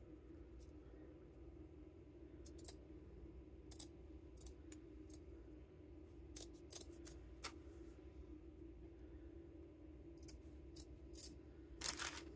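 Scissors snipping through a strip of cotton lace in scattered, faint cuts, with a louder snip near the end.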